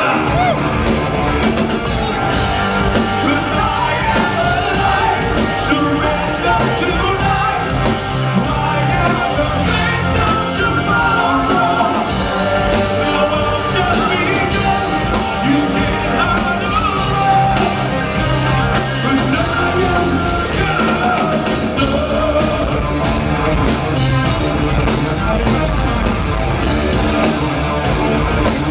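A rock band playing live and loud: a male singer over electric guitar, bass, keyboards and a drum kit.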